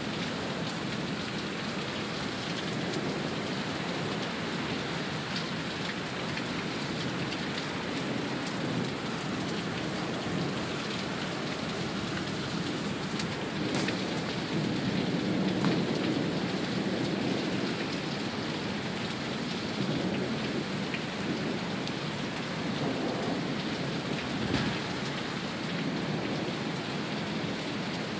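Torrential downpour: heavy rain pouring steadily, with a louder low swell about halfway through.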